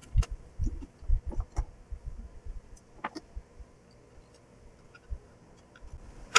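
Fingers handling the opened plastic housing and circuit board of a landline telephone: irregular small clicks, taps and dull bumps, busiest in the first three seconds and sparser after, with one sharp click at the end.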